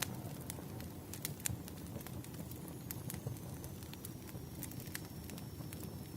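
Wood fire crackling: irregular sharp pops and snaps over a low, steady rumble.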